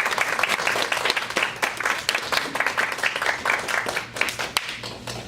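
Audience applauding, with many hands clapping; the clapping thins out and fades near the end.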